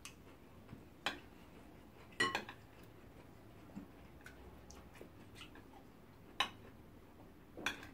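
Metal spoon clinking and scraping on a serving platter of food, about five short separate clicks spread over several seconds, faint between them.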